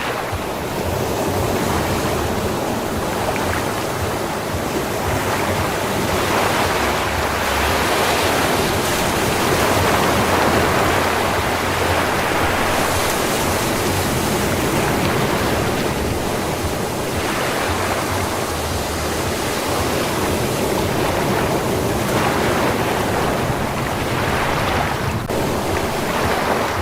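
Ocean waves breaking and washing onto a sandy beach, a continuous rushing surf that swells and ebbs every few seconds. A brief click sounds about 25 seconds in.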